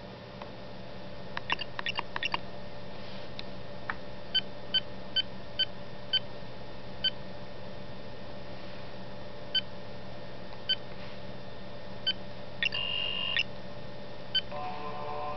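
Short electronic interface beeps from a Nokia 770 tablet's LCARS-style Linux interface, one for each tap on the touchscreen: a quick cluster early on, then a dozen or so single beeps, with one longer beep near the end. Just before the end, a video's soundtrack starts playing from the tablet's speaker.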